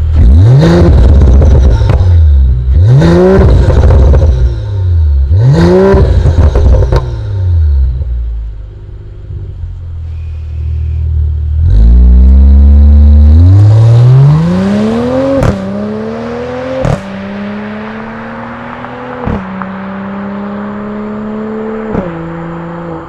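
Mercedes-AMG CLS53's turbocharged inline-six through an Innotech iPE valved exhaust, blipped three times in quick succession, each rev rising and falling sharply. After a short lull at idle it climbs in a long rev that is held high, with a few sharp cracks, and steps down near the end.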